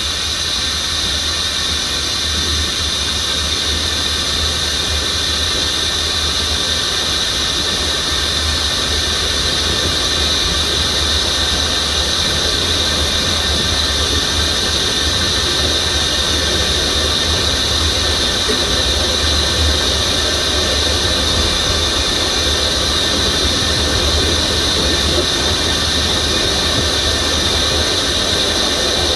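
Diesel locomotive running steadily, a constant high-pitched whine over a low hum.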